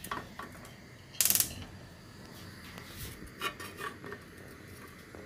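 Aluminium pressure cooker set down on a stove grate: a short burst of metal clatter about a second in, followed by a few lighter clicks and knocks.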